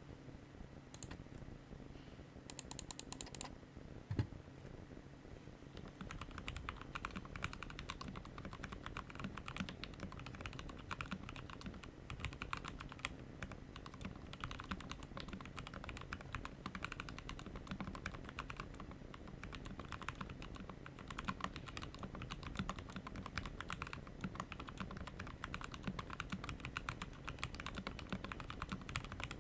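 Typing on a 60% mechanical keyboard built on a DZ60 board. A few keystrokes and a single loud thump come in the first few seconds. From about six seconds in, fast continuous typing follows.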